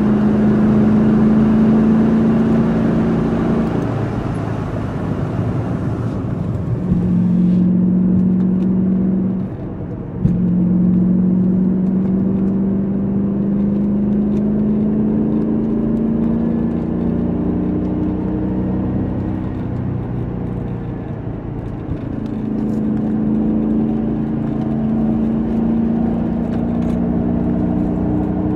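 Audi S6 Avant's V8 engine heard from inside the cabin while driving. It eases off about four seconds in, picks up again, breaks briefly for a gear change about ten seconds in, then rises slowly in pitch as the car accelerates, easing once more near the twenty-second mark before pulling again. A rushing hiss in the background fades out about six seconds in.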